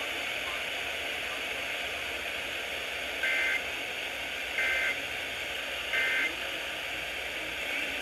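Weather alert radio tuned to an FM station, giving a steady static hiss through its speaker, with three short warbling data bursts about 1.3 seconds apart: the Emergency Alert System end-of-message code that closes the alert broadcast.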